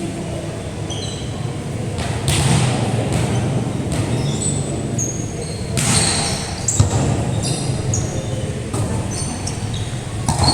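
Basketball game in a large indoor court: sneakers squeaking in many short, high chirps, the ball thudding on the floor, and the background noise of the hall.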